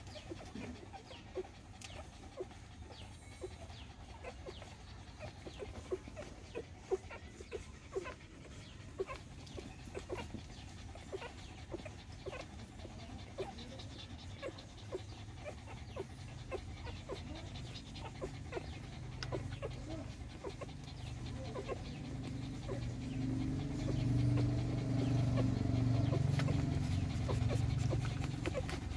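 Puppies suckling at their mother, with many small wet smacking clicks. A low steady drone builds up over the last ten seconds and becomes the loudest sound.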